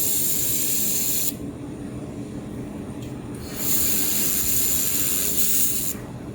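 Handheld laser welder firing in two runs of about two seconds each, each a loud, even, high hiss that starts and stops abruptly. The first run cuts off about a second in, and the second starts about midway. A steady low hum runs underneath.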